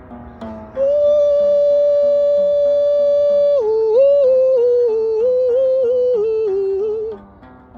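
A solo voice singing, yodel-like, over a repeating plucked accompaniment. It holds one long high note, then falls into a wavering phrase that steps downward and breaks off near the end.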